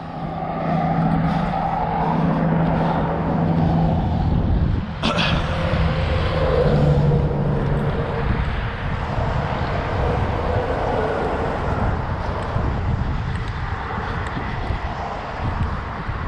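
Steady drone of road traffic on the neighbouring highway bridge, with a low hum that fades out about eight seconds in. A single sharp click comes about five seconds in.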